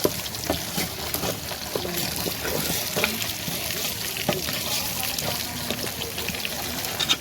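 Food sizzling in a frying pan, with scattered clicks and scrapes of stirring.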